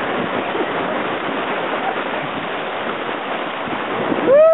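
Whitewater rapids rushing steadily around a paddle raft. Near the end a person lets out a loud, drawn-out yell that rises and falls in pitch.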